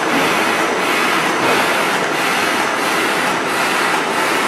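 Paper edge protector production line running: a steady mechanical noise with a faint regular pulse about one and a half times a second.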